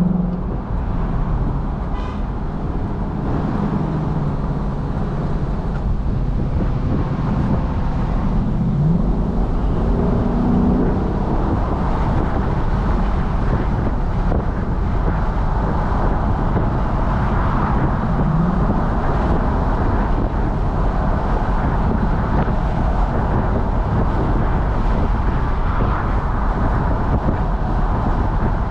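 Lexus LC500's naturally aspirated 5.0 V8 heard from the open cabin of the convertible while driving, with wind and road noise. The engine note rises briefly a few times, and the wind and road noise grow stronger in the second half.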